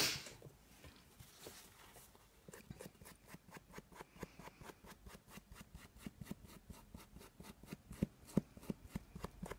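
Ink applicator dabbing distress ink onto paper edges: a run of light, quick taps, about four to five a second, starting a couple of seconds in, after a brief rustle at the very start.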